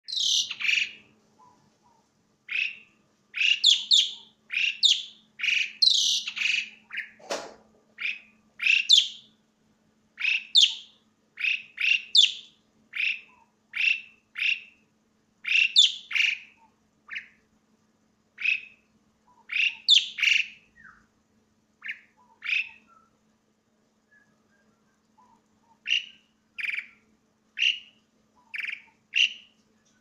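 Asian pied starling (jalak suren) calling loud and shrill: a long run of short, separate calls, about one to two a second, with a pause of a couple of seconds past the middle.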